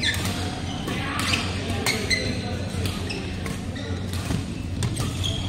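Doubles badminton rally: a string of sharp racket strikes on the shuttlecock, mixed with short high squeaks of court shoes and shuffling feet on the court floor.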